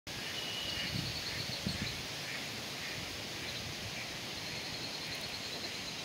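Marsh ambience: a steady outdoor hiss with faint, high, pulsing trills from small wildlife, one about a second in and a longer one in the second half. A few soft low thumps near the start.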